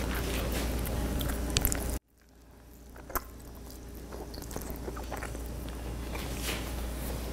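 A person biting into a soft pulled pork sandwich and chewing it with a full mouth: soft, wet squishing with small clicks. The sound cuts out abruptly about two seconds in, then faintly returns.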